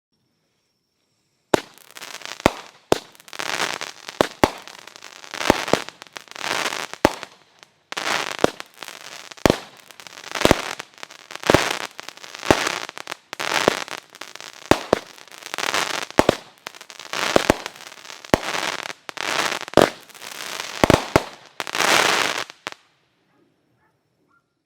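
A 200-gram crackle cake firing shot after shot, about one a second. Each sharp launch thump is followed by a spray of crackling, and the string begins a second or two in and stops shortly before the end.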